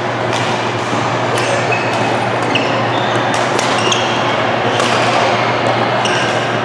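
Badminton rally: sharp cracks of rackets hitting a shuttlecock and short squeaks of court shoes on the floor, over a steady din filling a large sports hall.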